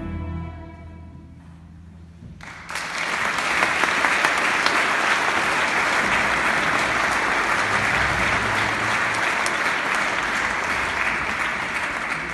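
An orchestra's last chord dies away, and about two and a half seconds in an audience bursts into steady applause that carries on to the end.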